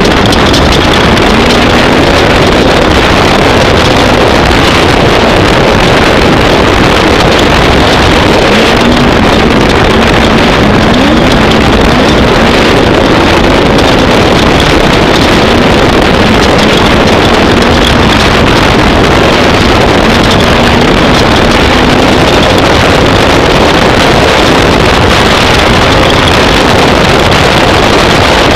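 Off-road race vehicle's engine running hard. The revs rise and fall several times, under a loud, steady rush of wind on the microphone.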